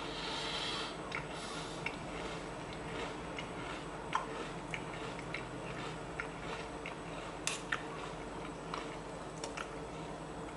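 Someone chewing a mouthful of grain-free cereal in milk: scattered soft crunches and clicks over a steady low hum.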